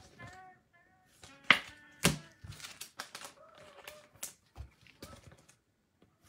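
Faint background music with several sharp taps and clicks of objects being handled on a tabletop, the two loudest about one and a half and two seconds in.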